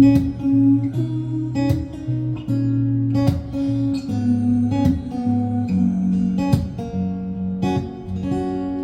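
Music: an acoustic guitar strumming sustained chords, with a stroke about every second.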